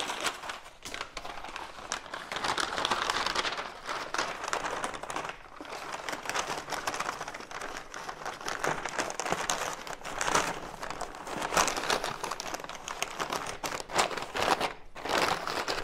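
Wrapping material crinkling and rustling continuously with many small crackles, as a gift parcel is packed full and closed up.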